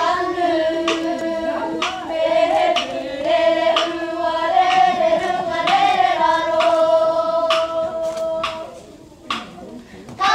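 A group of girls' voices singing a Māori poi song in unison, with sharp taps of the poi striking hands about twice a second. The singing stops about nine seconds in.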